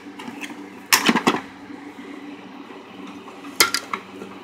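Two short clusters of sharp clicks and knocks, about a second in and again near the end, from the parts of a vacuum cleaner being handled while it is taken apart. A faint steady hum runs underneath.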